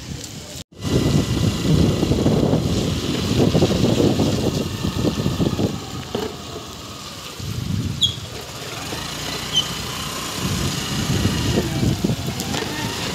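Wind buffeting the microphone on a moving motorbike in the rain, over the bike's engine running. It cuts in suddenly about a second in and eases for a while around six seconds in.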